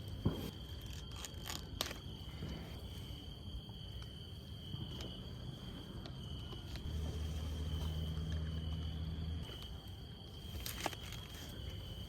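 Steady high-pitched insect chirring, with a few faint clicks and a low hum for a couple of seconds past the middle.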